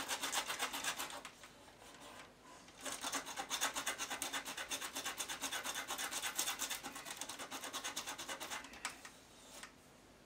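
Sandpaper rubbed back and forth by hand to clean off a part, in quick even strokes of about five a second. The rubbing stops about a second in and resumes about three seconds in for roughly six seconds.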